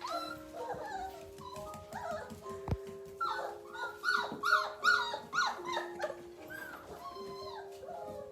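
Three-week-old Gerberian Shepsky (German shepherd–husky mix) puppies whining and squeaking, many short falling cries in quick succession, busiest and loudest from about three to five seconds in, over background music with held notes.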